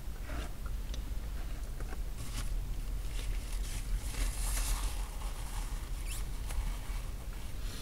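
A thick milkshake being sucked up through a plastic straw: a steady airy slurping dotted with many small clicks and pops.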